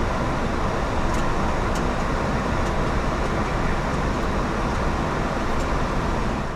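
Steady airflow and engine noise on a Boeing 737 MAX flight deck in the climb after takeoff, with gear and flaps up. The noise starts to fade out at the very end.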